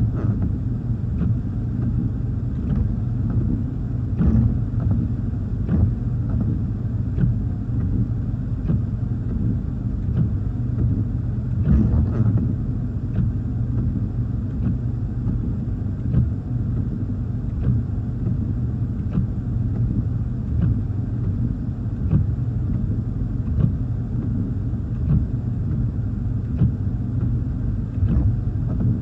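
Windshield wipers sweeping back and forth in rain, heard from inside the car cabin, with a short knock about every one and a half seconds over a steady low rumble.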